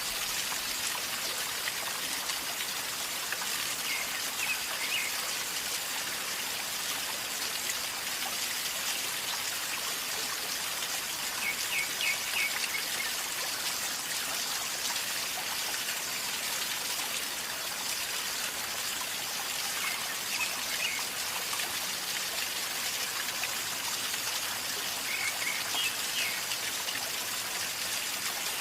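River water flowing and gurgling steadily over stones. Short clusters of quick high notes stand out above the water about four times.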